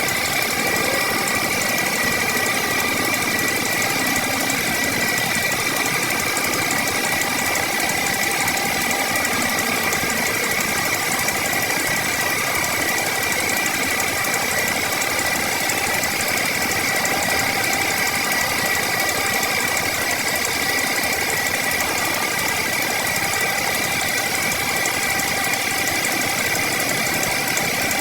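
A woodworking machine's motor running steadily with a constant high whine and no breaks.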